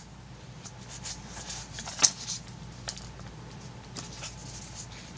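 Hands handling the pieces of a two-piece rugged plastic phone case: light clicks and rustling, with one sharper click about two seconds in.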